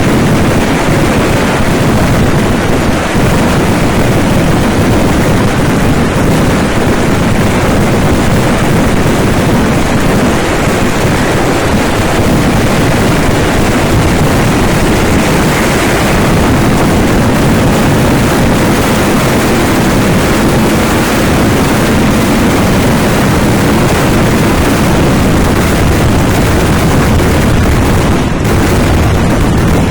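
Fireworks barrage: firecrackers going off in rapid, unbroken succession, a dense continuous crackle and boom that stays loud throughout.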